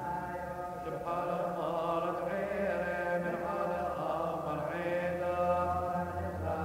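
Syriac Orthodox liturgical chant: voices singing a continuous, melismatic melodic line.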